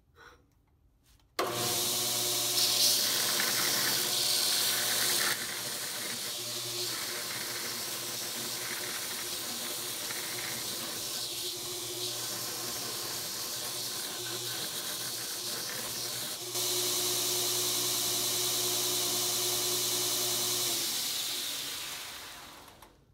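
Belt sander grinding the edge of a thick steel plate: a steady motor hum under a loud grinding hiss. It comes on suddenly about a second and a half in, changes level a couple of times as the plate is worked, and fades out near the end as the sander winds down.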